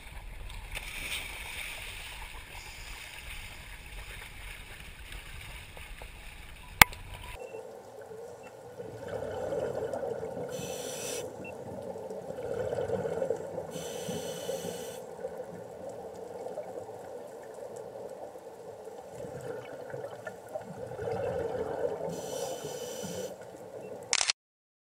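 First wind and water noise above the surface at a dive boat, ending in a sharp click. After that, muffled underwater camera sound: a steady low rush, with a hiss of scuba divers' exhaled bubbles about every few seconds. Near the end there is a brief loud rising sweep, then the sound cuts out.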